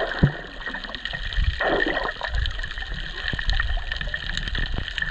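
Water splashing and sloshing close to the microphone, with many small splatters and low thumps and one sharp knock just after the start.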